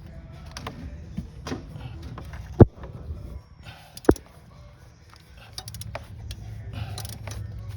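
Hand tools being handled during spark plug work in an engine bay: light clicking and rattling, with two sharp knocks about a second and a half apart, over a low steady rumble.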